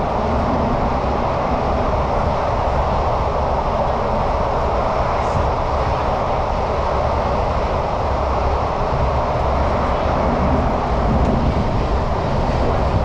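Steady running noise heard from inside a Singapore MRT train car moving through a tunnel: an even rumble and rush of wheels on rail and air, with no breaks.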